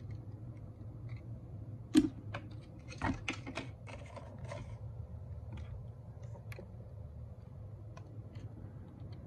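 A die-cast model double-decker bus (Masterpiece Collectibles Volvo B9TL) is set down on a tabletop with a sharp knock about two seconds in. A quick cluster of light clicks and taps follows as it is handled, then scattered faint ticks as it is picked up, over a low steady hum.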